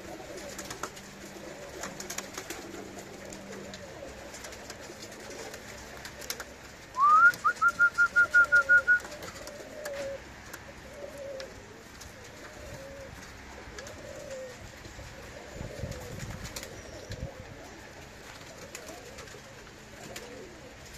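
Budapest highflyer pigeons cooing, low wavering coos repeating again and again. About seven seconds in, a loud, rapid run of about nine high chirps lasts about two seconds.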